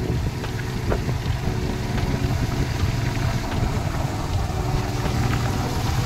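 Motorcycle engine running steadily while riding, a constant low hum.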